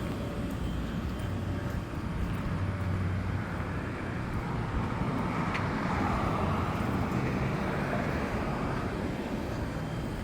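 Road traffic noise: a steady low rumble, with a vehicle passing about halfway through, its tyre noise swelling and then fading.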